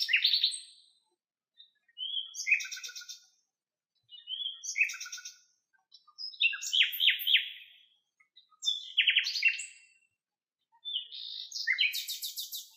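Common nightingale (Luscinia megarhynchos) singing: short phrases of fast repeated notes, about one every two seconds, each lasting a second or two with a brief pause between them. One phrase trails off at the start and another is still going at the end.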